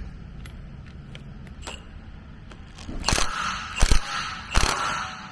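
The pinion flange of a Honda S2000 differential being turned by hand in its housing, stiff with the drag of the freshly fitted pinion seal, with a few light clicks. About three seconds in come several loud metallic clanks and scrapes.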